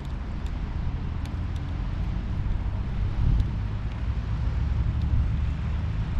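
Steady low rumble of road traffic mixed with wind on the microphone.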